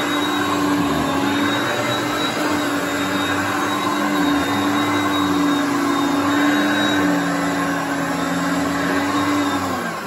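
Hoover Concept One (U3105) direct-air upright vacuum cleaner running on a shag rug: a very loud, steady motor whine over the rush of air. Near the end the pitch drops and the sound begins to fade as the motor winds down.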